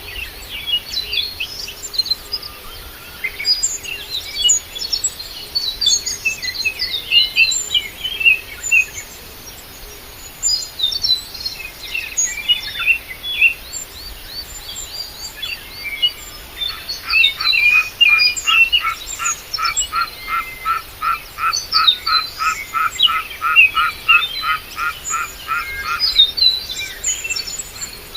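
Wild birds chirping and calling in quick, overlapping short notes. From about halfway through to near the end, one caller repeats a steady, even run of notes at about three a second.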